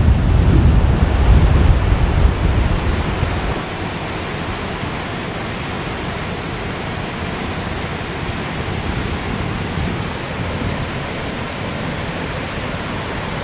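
Steady rushing roar of the Ermenek Dam's spillway water jets colliding and crashing down into the gorge, a thick hiss of falling water and spray. A deep low rumble under it drops away about three and a half seconds in, leaving the even rush.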